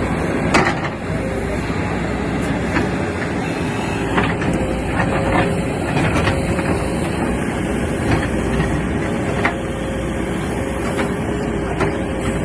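Backhoe's diesel engine running under load with a steady hum, while its multi-ripper bucket teeth break through rock, giving sharp, irregular knocks and cracks about once a second.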